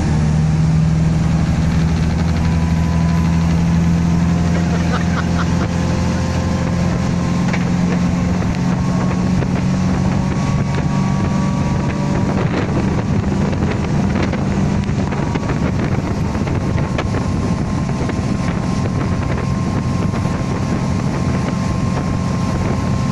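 Motorboat engine running steadily at speed while towing a parasail, with wind buffeting the microphone.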